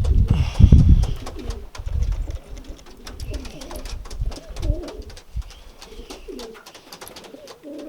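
Racing pigeons cooing over and over at the loft, with small clicks throughout. A loud low rumble fills the first second or so.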